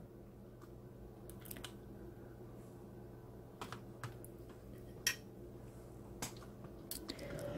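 Faint, scattered small clicks and taps from handling parts and tools, including a 3.5 mm earphone plug being pushed into a jack; the sharpest click comes about five seconds in.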